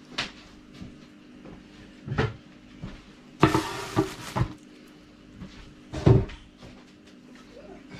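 Kitchen handling sounds: scattered knocks and thumps, with about a second of rustling and clatter some three and a half seconds in as a wooden cutting board is set down on a table and a plastic bag pushed aside. The loudest thump comes about six seconds in, over a faint steady hum.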